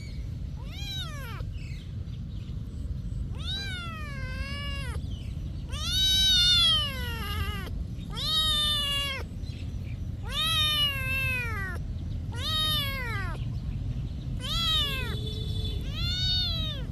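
A cat meowing over and over, about eight drawn-out meows, each rising then falling in pitch, the loudest about six seconds in, over a steady low background hum.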